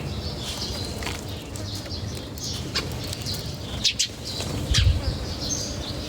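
Birds flapping their wings and chirping while feeding, with a few sharp clicks about three to four seconds in and a low thump near five seconds.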